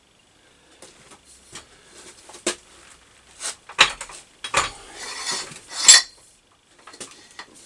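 Irregular metallic clinks, knocks and scraping of steel parts and tools being handled, beginning about a second in, with the loudest knocks around the middle.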